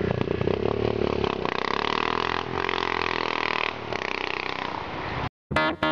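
Motorcycle engine running, its pitch drifting up and down. It cuts off abruptly about five seconds in, and plucked guitar music starts right after.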